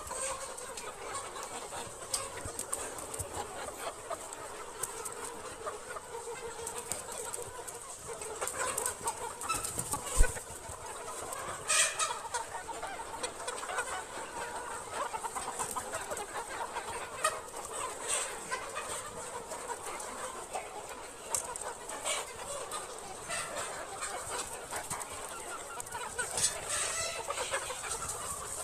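A flock of chickens clucking, with many short calls overlapping throughout. A single sharp knock sounds about ten seconds in.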